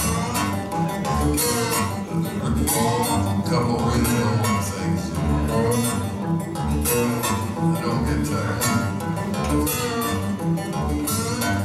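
Solo acoustic guitar played fingerstyle: a fast, busy stream of picked notes over a pulsing bass line.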